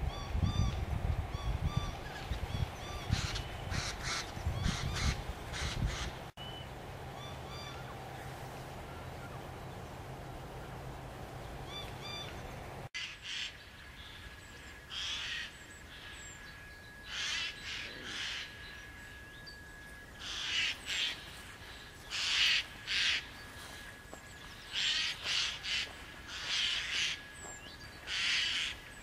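Eurasian jay giving harsh screeching calls in quick runs of two to four, repeated every couple of seconds. A low rumble runs under the calls for about the first six seconds.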